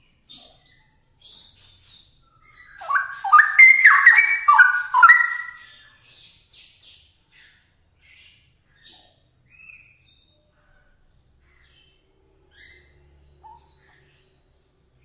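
Straw-headed bulbul (cucak rowo) singing: a loud, bubbling phrase of rich warbled notes starts about three seconds in and lasts about three seconds. Fainter short high chirps come before and after it.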